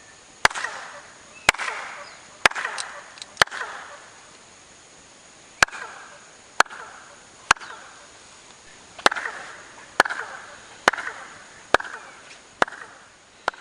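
Hand claps, about one a second in three runs (four, then three, then six). Each clap is answered by a short chirping echo off the stepped stone temple, the echo that is likened to the call of the quetzal.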